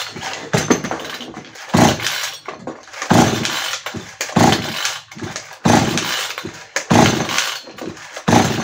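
Hecht 58 cc two-stroke chainsaw cranked over by its recoil starter cord without firing, one pull about every second and a quarter, seven or so in a row. This is a cold compression test, with a gauge in the spark-plug hole and the throttle held partly open.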